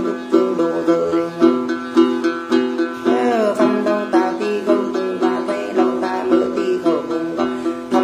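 Đàn tính, the long-necked Tày gourd lute, strummed in a steady repeating pattern of about two strokes a second, accompanying Then singing. A voice slides down on a drawn-out vowel about three seconds in.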